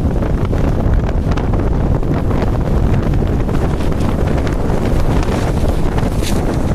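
Blizzard wind blowing hard against the microphone: a loud, steady low rumble of wind noise.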